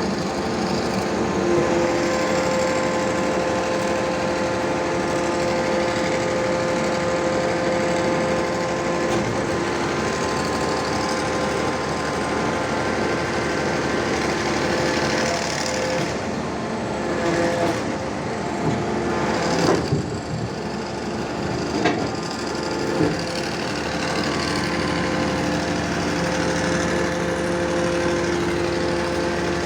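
Hydraulic static pile driver running, its engine and hydraulic pump making a steady drone with a constant whine, with a few brief knocks near the middle.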